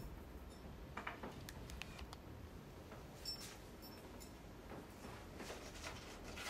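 Hushed room with faint scattered clicks and light knocks: the small handling and movement noises of someone collecting an item from a table and going to a seat.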